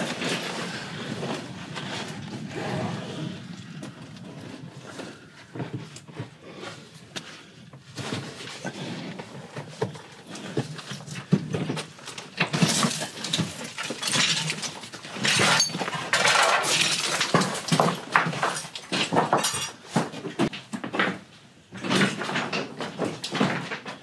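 Footsteps and scrambling over loose rock rubble in a narrow mine tunnel, stones crunching and clattering underfoot. The noises come irregularly, sparse for the first few seconds and busiest in the second half.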